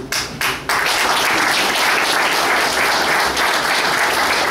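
Applause from a room of people: a few separate claps at first, filling out into dense, steady clapping about a second in.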